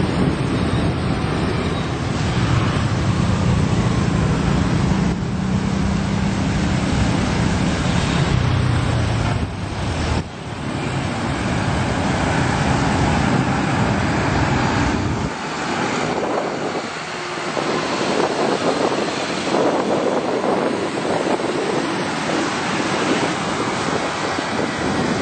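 Road traffic noise with wind on the microphone: a vehicle's engine and tyres make a low rumble that drops away about fifteen seconds in, leaving a steady hiss.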